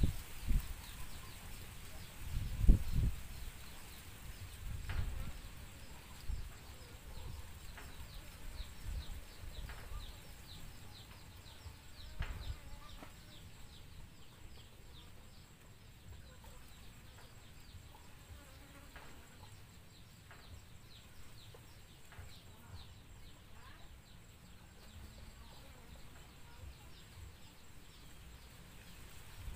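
Faint insect buzzing with many quick, high chirps, over low rumbling noise on the microphone that is strongest in the first few seconds. A single knock comes about three seconds in.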